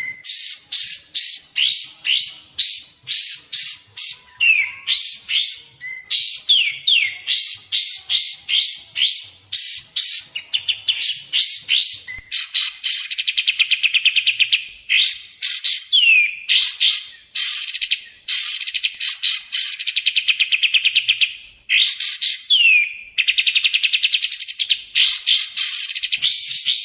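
Kapas tembak bird calling nonstop. It gives a quick series of sharp chips, about three a second. From about halfway it switches to long rattling trills broken by short falling whistles, and the phrase repeats as a lure recording.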